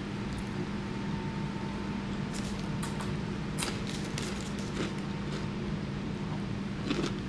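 Eating sounds: chewing a sandwich with short, sharp wet mouth clicks, clustered a couple of seconds in and again near the end, over a steady low hum.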